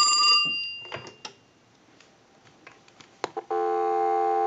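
The twin bells of a Western Electric wooden wall telephone finish a ring and die away within the first second. A few clicks and knocks follow as the handset is lifted off the hook, and about three and a half seconds in a steady dial tone starts, heard from the receiver through an amplified pickup.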